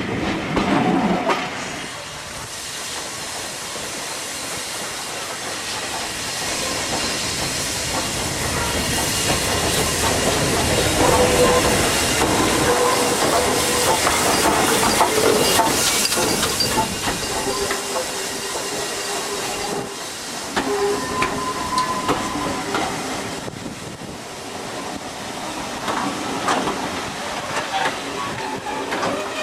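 Steam locomotive working along the line, a steady hiss of steam with running noise that builds to its loudest about halfway through and then eases off, with faint thin squealing tones now and then.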